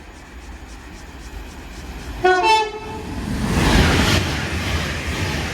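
Class 390 Pendolino electric train sounding a short two-tone horn, then passing through the station at speed with a rising rush of wheel and air noise.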